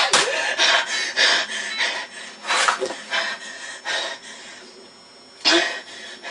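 A person breathing hard in short, irregular gasps, loud at first and tailing off, with a louder gasp twice.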